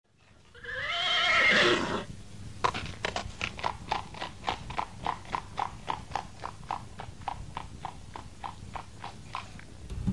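A horse whinnying once, a pitched neigh that falls over about a second and a half, then hooves clip-clopping at an even pace, about four beats a second.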